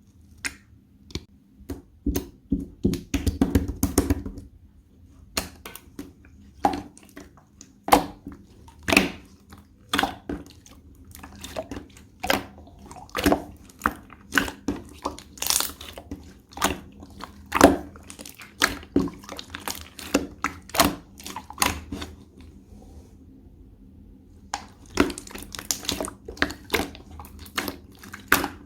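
Hands playing with slime: irregular sticky clicks and pops as it is pressed, folded and stretched, with a denser run of squishing a few seconds in.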